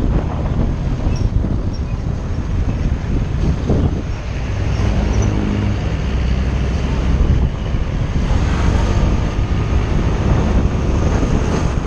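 Road noise of a moving vehicle in traffic, with wind buffeting the microphone; a steady engine hum stands out for about three seconds from roughly four seconds in.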